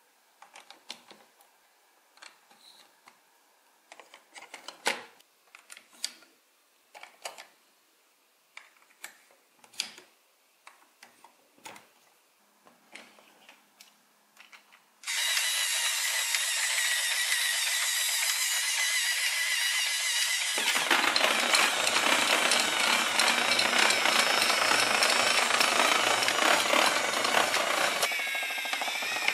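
Plastic building-block parts clicking as they are fitted and handled. About halfway through, the toy's battery motor switches on and runs steadily, driving plastic gears and wheels with a loud mechanical rattle that grows fuller about five seconds later.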